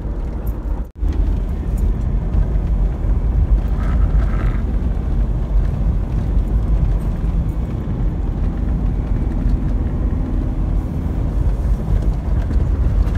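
Steady low rumble of a car driving, heard from inside the cabin: engine, tyre and road noise. The sound drops out suddenly for a split second about a second in.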